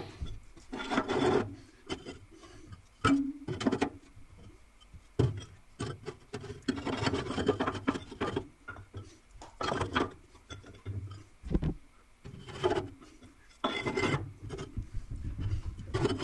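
Fire bricks being slid and fitted into a wood stove's firebox: irregular scraping and rubbing of brick against brick and metal, with a few sharp knocks as pieces are set down.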